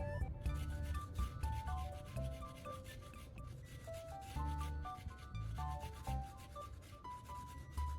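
Toothbrush bristles scrubbing toothpaste into a silicone remote-control button pad, a quick rasping rub, over background music with a simple melody.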